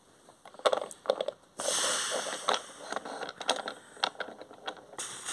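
Clicks, knocks and scraping of toy trains being pushed by hand along a toy railway track. A rush of noise lasts about a second and a half, starting about one and a half seconds in.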